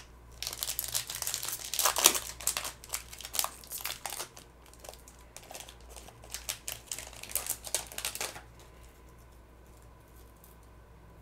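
Wrapper of a hockey card pack being torn open and crinkled by hand, a busy run of crackling that is loudest about two seconds in and stops a few seconds before the end.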